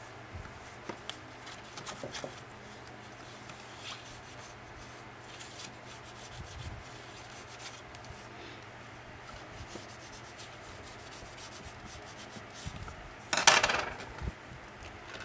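Bone folder rubbing over paper in faint, scattered strokes, burnishing a glued paper pocket down onto a journal page. Near the end comes one loud, brief rustle of paper and card as the page is picked up off the cutting mat.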